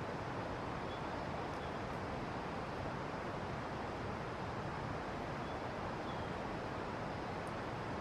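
Steady rushing of flowing water, even and unbroken, with a few faint, short high chirps.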